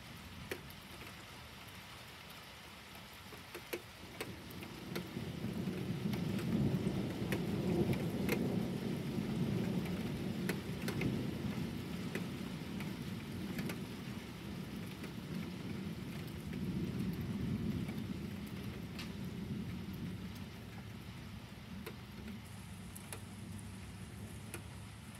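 Rolling thunder: a low rumble that builds about four seconds in, stays loud for several seconds and slowly dies away over the next ten or so. Steady rain with scattered drop ticks goes on under it throughout.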